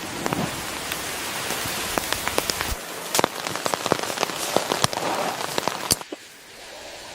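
Rain falling, with many distinct drops ticking on a surface over a steady hiss. About six seconds in it cuts to a quieter, softer hush.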